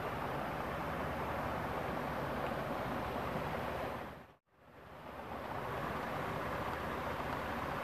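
Steady rushing background noise with a faint thin high whine in it, fading out to silence about four seconds in and coming straight back up.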